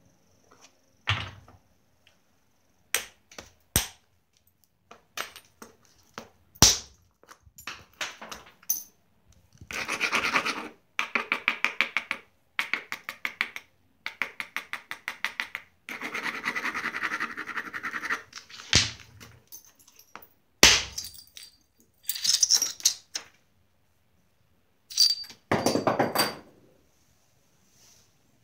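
Flintknapping a Georgetown flint biface: sharp single clicks of an antler billet striking the edge to drive off flakes, between stretches of rapid scraping strokes as the edge is abraded to prepare striking platforms.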